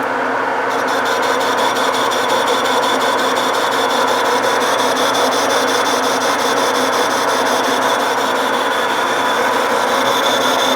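Metal lathe running with a boring bar cutting inside a pulley's bore, a steady mix of motor hum and scraping cutting noise. About a second in, a fast, even ticking of about four a second joins in the high range.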